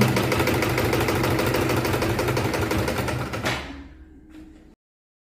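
Extra-heavy-duty industrial sewing machine running at speed with a fast, even stitching rhythm, stopping about three and a half seconds in.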